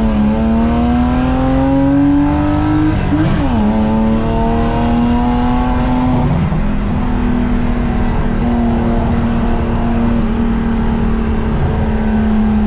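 BMW 325i drift car's naturally aspirated straight-six accelerating hard. The revs climb for about three seconds, drop sharply, then hold a nearly steady engine note.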